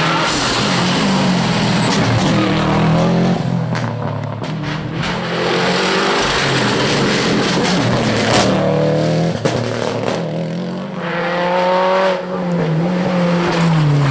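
First-generation Subaru Impreza rally car driven hard past at close range, its flat-four engine at high revs with pitch changes and brief dips between gear changes. Near the end a second rally car's engine comes in, rising in pitch as it accelerates.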